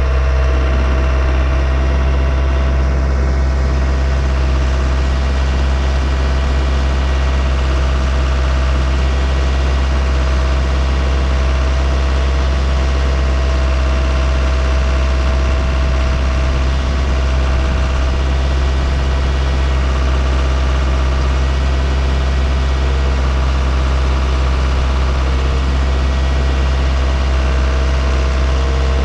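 Wood-Mizer LT15 portable sawmill running steadily, a loud even drone with a constant mid-pitched tone over it.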